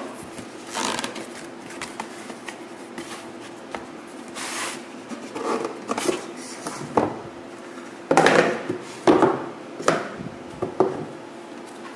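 Cardboard packaging being handled: flaps of a shipping box opened and a boxed iPad 2 slid out of its cardboard insert, with irregular scraping and rustling and several sharp knocks, the loudest burst of knocks and scrapes in the last third.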